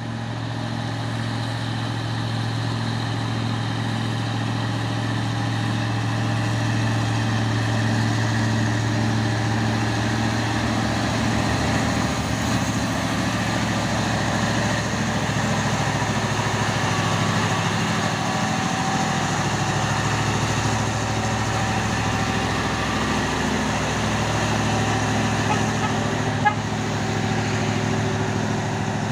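Diesel engine of a Mitsubishi Fuso trailer truck running steadily, a low drone that grows a little louder toward the middle. A single short knock about 26 seconds in.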